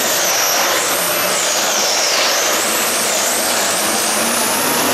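Modified pulling tractor's engines running flat out under full load as it drags the weight sled. The sound is loud and steady, with a high whine that wavers up and down in pitch.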